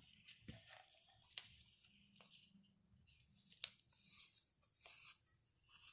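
Faint paper handling: a few soft ticks and short rustles as a paper circle is folded in half and creased.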